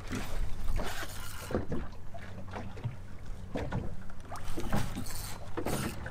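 Small boat on open water: wind on the microphone and water slapping the hull over a steady low hum, with a few short knocks.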